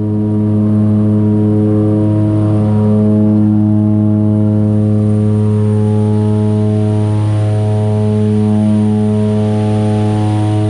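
Propeller plane's engine and propeller running at take-off power through the take-off and climb, heard from inside the cockpit as a loud, steady, low drone with strong overtones.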